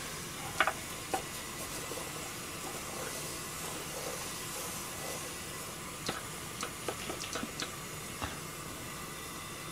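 Noodles boiling in a wide pan of water, a steady hiss, with a few light clicks of chopsticks against the pan, most of them between about six and eight seconds in.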